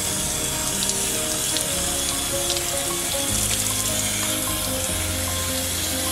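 Steady hiss of water spraying onto the leaves of a potted schefflera (umbrella tree), rinsing the dust off its foliage, with background music playing underneath.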